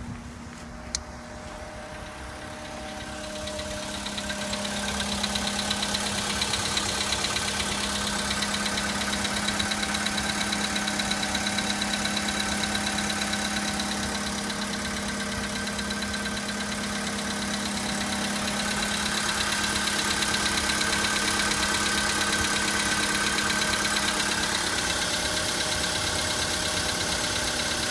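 VW Polo Sedan engine idling with a rapid, even knocking tap running through it: the engine knock the owner is documenting at 53,000 km. A single sharp click sounds about a second in, and the engine grows louder over the first few seconds, then stays steady.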